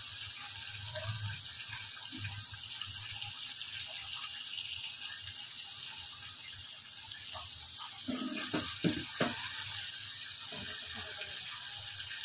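Mutton masala sizzling in an open aluminium pressure cooker on a gas flame: a steady hiss of oil and gravy frying.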